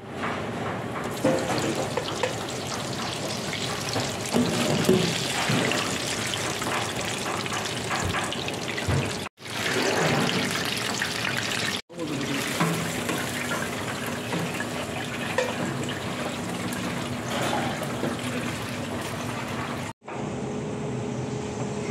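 Breaded chicken legs deep-frying in a commercial fryer: hot oil sizzling and crackling steadily, cut off abruptly several times. Near the end it gives way to a quieter, steadier hum.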